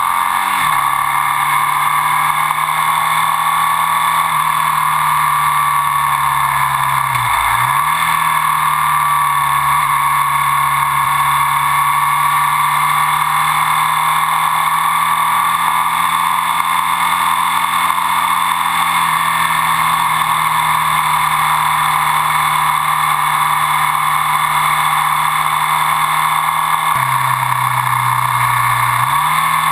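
Ducati Sport 1000's air-cooled L-twin running at steady cruising revs under way, over heavy wind rush on the onboard camera. The engine note dips sharply and recovers about seven seconds in, then drops lower for a couple of seconds near the end before climbing back.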